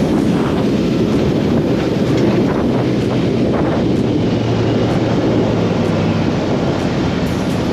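A 22-foot Stingray runabout running at speed: a steady engine hum under heavy wind noise on the microphone.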